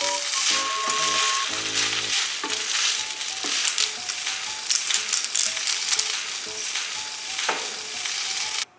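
Glass noodles with shrimp, bean sprouts and Chinese chives sizzling in a frying pan as they are stir-fried, at the stage where the sauce is almost absorbed. The sizzle is steady and cuts off suddenly near the end.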